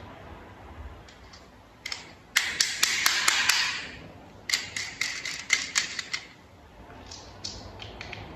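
Sharp clicks and snaps of hard plastic toy parts being handled and fitted together, in two quick runs of several clicks each, with a few scattered clicks near the end.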